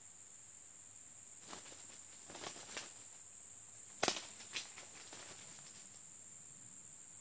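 Red junglefowl roosters fighting: a run of short wing flaps and scuffles, the loudest burst about four seconds in with a few quick strikes after it. A steady high insect drone runs underneath.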